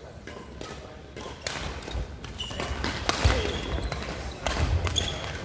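Badminton hall sounds: scattered sharp racket-and-shuttlecock hits and thuds, mixed with short squeaks of court shoes on the wooden floor.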